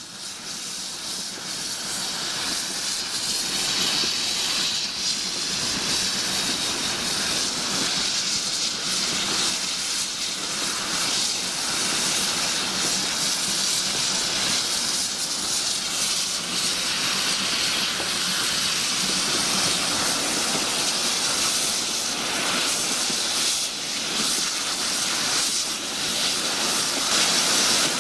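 Steady rushing noise of a moving steam-hauled train, heard through an open carriage window: wheels on the track and air rushing past. It fades in over the first couple of seconds.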